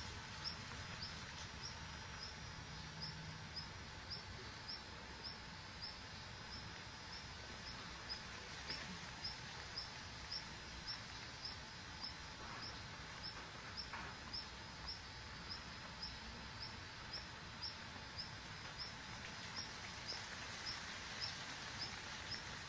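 A small animal's high, short chirp, repeated steadily about twice a second, over faint, steady outdoor background noise.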